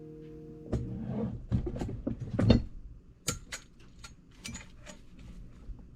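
Irregular clicks, knocks and rattles of hard parts being handled and taken apart, as when working on a van's interior fittings, with the loudest knock about two and a half seconds in. The tail end of background music stops just before the knocks begin.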